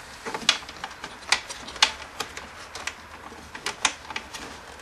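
Irregular light clicks and ticks, a few a second, from hands handling an electrical cable and plastic parts while routing it under a snowmobile's hood.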